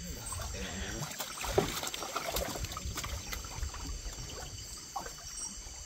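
Small wooden boat being paddled by hand: a wooden paddle dips and swishes through the water, with scattered short knocks against the hull.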